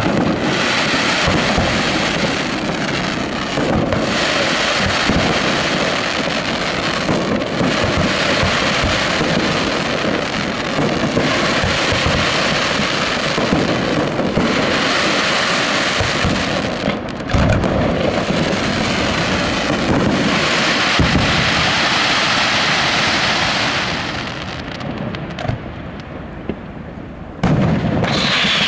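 Aerial fireworks bursting into dense crackle that comes in waves, with a few deep booms among it. The crackle thins out near the end, then a loud burst cuts in just before the end.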